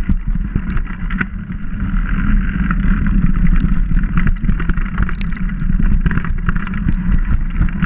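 Mountain bike rolling fast down a dirt forest trail, heard from a bike-mounted camera: a loud steady rumble of wind on the microphone and tyre noise, broken by frequent sharp clicks and knocks from the bike jolting over roots and leaves.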